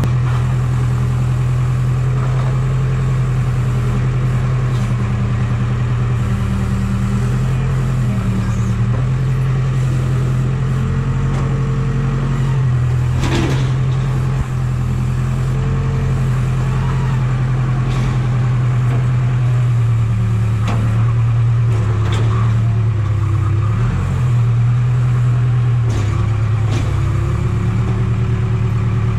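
Heavy equipment's engine running steadily, its pitch stepping up and down a little as the machine is worked, with a few sharp clanks.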